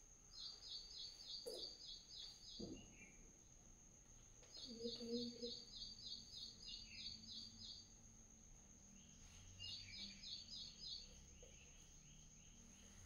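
A small bird chirping faintly: three quick runs of short, high chirps, each run followed by a single lower note, over a steady faint high-pitched whine.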